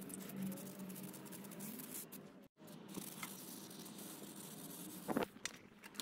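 Faint hiss and patter of water spraying onto Ducati 900SS aluminium cylinder heads, over a low steady hum, with a brief break about two and a half seconds in.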